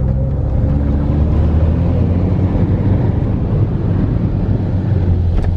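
Car engine pulling away, rising a little in pitch over the first couple of seconds and then running steadily, heard from inside the car as it drives into floodwater, with a wash of water noise over the engine.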